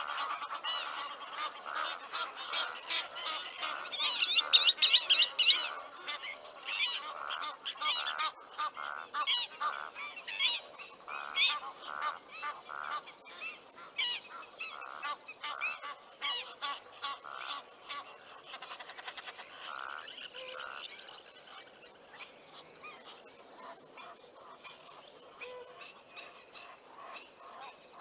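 Egyptian geese honking over and over, with a loud bout of rapid calls about four seconds in; the calls then thin out and grow fainter toward the end.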